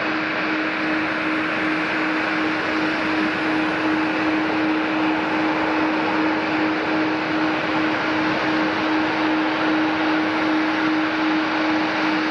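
Jet aircraft running steadily: an even hiss with a constant low hum held at one pitch.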